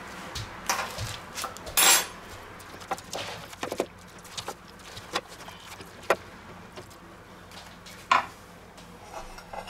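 Spatula and fork cutting and scraping in a glass baking dish while a portion of lasagne is lifted onto a plate, giving scattered clicks and knocks of utensils on glass and crockery. The loudest knock comes about two seconds in, another about eight seconds in.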